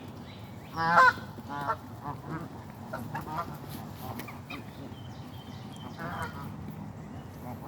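A flock of Canada geese honking: one loud honk about a second in, then scattered shorter honks through the rest.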